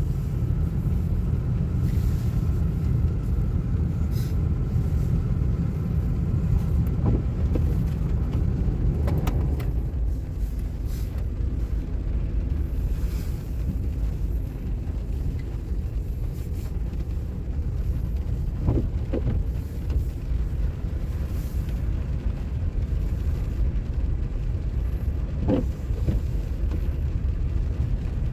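Steady low road and engine rumble heard inside a car's cabin while driving on snowy, slushy streets.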